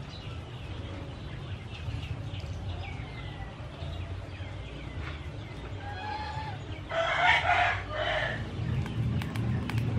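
A rooster crows once about seven seconds in, a call of a little over a second in two parts and the loudest sound here, over faint bird chirps and a steady low hum.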